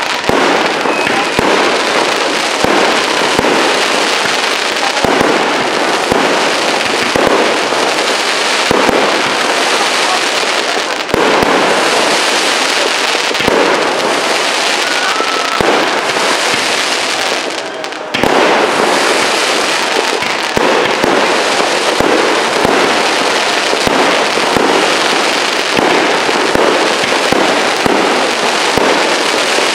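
Fireworks display: aerial shells bursting in a loud, dense, continuous barrage of bangs and crackle, the reports overlapping with hardly a pause.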